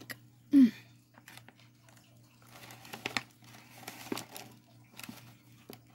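Packaging being crinkled and rustled by hand in scattered bursts over a few seconds, after a brief loud vocal sound near the start.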